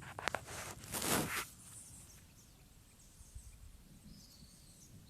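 A brief rustling noise in the first second and a half, then a quiet outdoor background of faint insect chirping over a low rumble.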